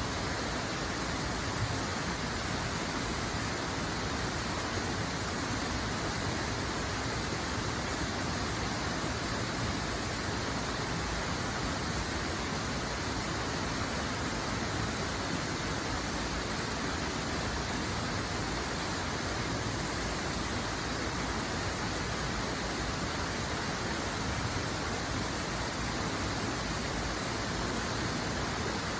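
Water running steadily, an even, unbroken rush with no change in level.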